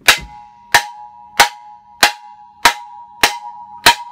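Hammer blows on the steel shaft of an LG AEN73131403 washer clutch assembly (gearcase), seven evenly paced strikes a little under two a second. Each blow leaves the metal housing ringing with a clear tone. The part is pressed in tight and is being driven out.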